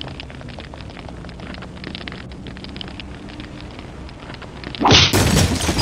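Fire crackling: a steady patter of small crackles over a low rumble. About five seconds in, a much louder burst of noise cuts in.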